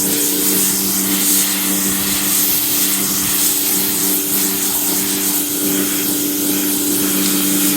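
Pressure washer running steadily, its motor and pump humming under the hiss of the water jet, rinsing snow-foam traffic film remover off a car's paintwork before it dries.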